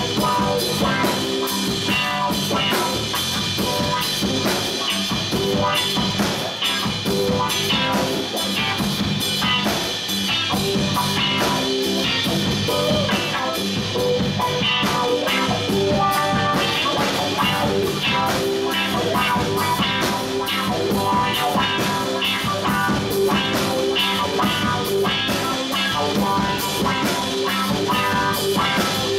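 Live rock-blues band playing: electric guitar, electric bass guitar and a drum kit keeping a steady beat.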